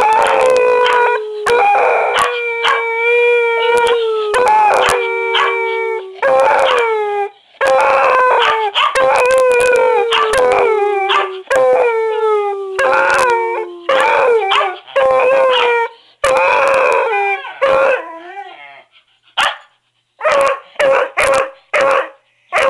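Beagle–bluetick hound mix howling: a series of long drawn-out howls, each sliding slightly down in pitch, with short yelps between them. From about eighteen seconds in the howls give way to a run of short barks.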